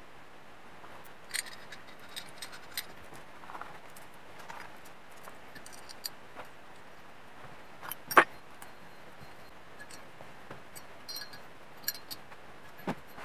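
Light metal clicks and clinks of a welded steel exhaust pipe being worked onto a two-stroke engine's exhaust flange by hand, with one sharper clank about eight seconds in.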